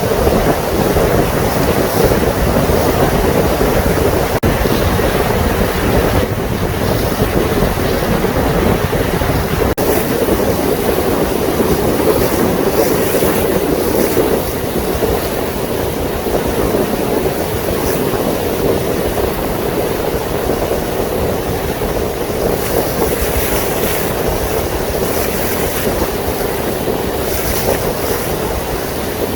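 Passenger boat underway: its engine runs with a steady low rumble and drone, over wind buffeting the microphone and water rushing along the hull.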